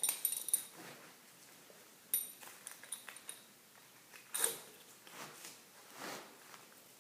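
Small metal pieces jingling and clinking in short clusters, with soft rustling and a single sharp click about four and a half seconds in.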